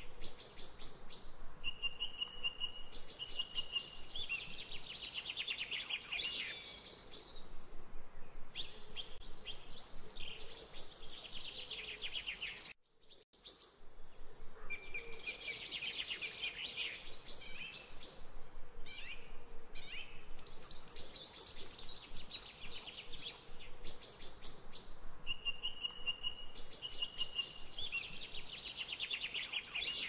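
Songbirds singing: repeated trills and clear held whistled notes, with the sound cutting out briefly about a third of the way in.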